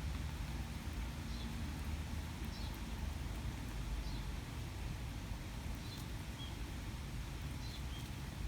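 Rainy outdoor ambience: a steady low rumble with a small bird's short high chirps repeating every second or so, and scattered faint ticks.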